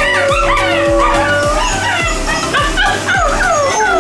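Wolf puppies howling together: one long held howl over the first second and a half, under many short rising-and-falling yips and whines.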